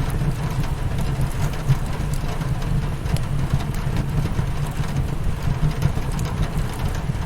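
Rain pattering on a windowpane mixed with the crackle of a wood fire, over a steady low rumble.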